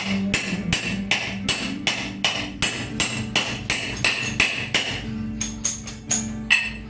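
Background music with a steady beat: tambourine-like percussion strikes about two to three times a second over a held low note.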